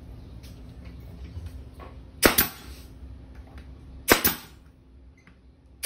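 Pneumatic finishing nail gun firing nails into wooden boards: two sharp shots about two seconds apart, and a third right at the end, each a quick double crack.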